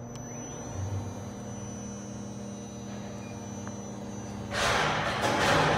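Quintax 5-axis CNC router running, with a steady machine hum and a faint rising whine in the first second. About four and a half seconds in, a loud rushing hiss sets in and lasts to the end.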